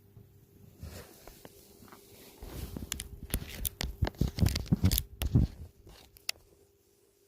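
Rustling and scraping with sharp scratchy clicks, and a cluster of dull thumps in the middle, then dying down near the end.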